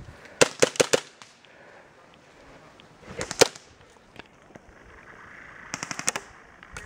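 Airsoft guns firing three short bursts of rapid, sharp shots: one about half a second in, one around three seconds in, and one near the end.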